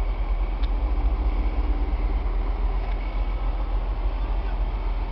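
A vehicle engine running steadily with a low rumble and a faint, steady high whine.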